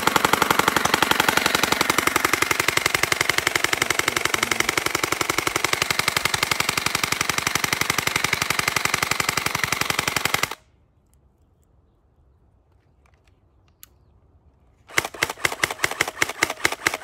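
Electric gel blaster firing on full auto: a long run of rapid, even clicks that cuts off suddenly about ten seconds in, then a second burst starting near the end.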